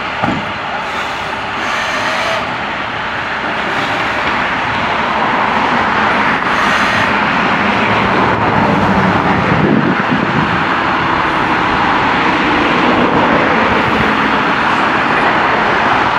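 Utility truck engine running steadily, rising in loudness over the first few seconds as the boom hoists the pole, with a brief knock near the start.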